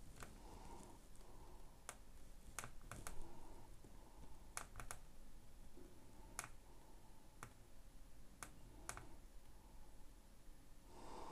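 Faint, scattered clicks and taps as a vape mod's plastic and rubber-clad body is handled and turned in the fingers, about a dozen in all, some in quick pairs or threes.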